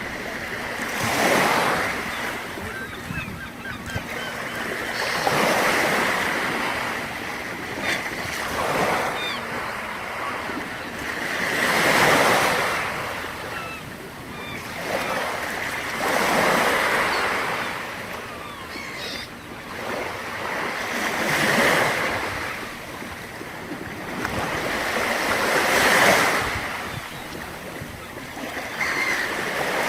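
Black Sea waves breaking on the shore, the surf swelling and washing back about every four to five seconds.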